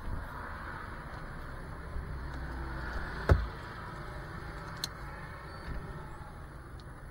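Low wind rumble on a small camera microphone, with a road vehicle passing that swells over the first few seconds, and one sharp knock a little over three seconds in.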